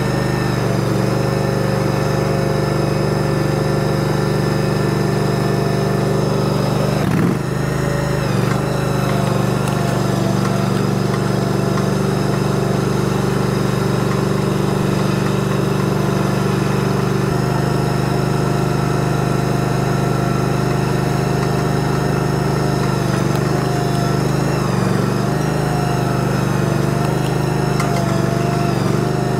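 Engine of a ride-on shed-moving machine running steadily as it drives, with a short knock and dip in its sound about seven seconds in.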